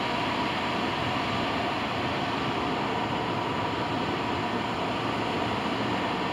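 Steady road and engine noise of a car driving, heard from inside the car.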